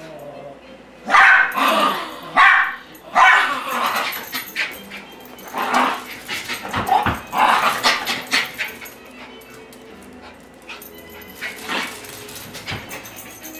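Dogs barking in short separate bursts, loudest over the first few seconds, then softer, more scattered barks later on.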